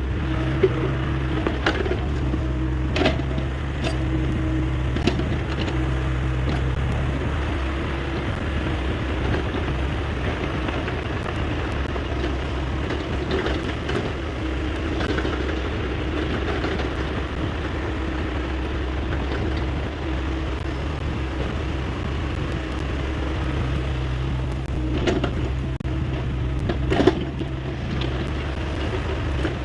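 Hyundai 85A excavator's diesel engine running steadily under work, with a few sharp knocks and clanks, the loudest near the end.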